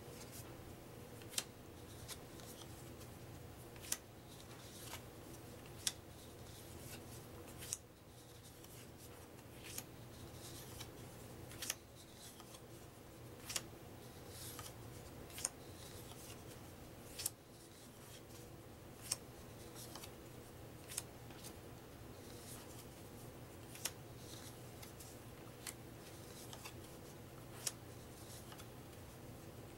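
Paper trivia cards flipped off a stack one at a time, with a sharp snap of card roughly every two seconds. A low steady hum runs underneath.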